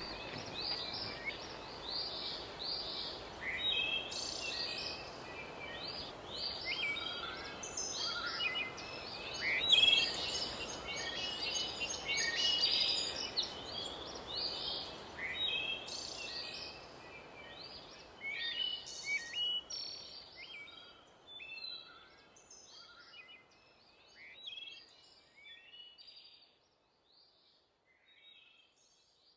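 Many small birds chirping, with dense overlapping short chirps that thin out and fade away over the last ten seconds or so.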